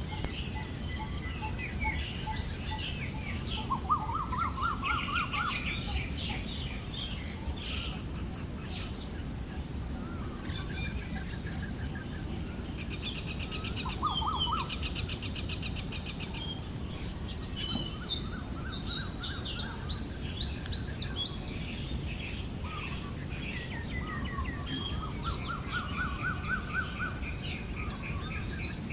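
Forest birds chirping, with a rising trill that returns several times, over a steady high insect buzz and the low hiss of a gentle breeze.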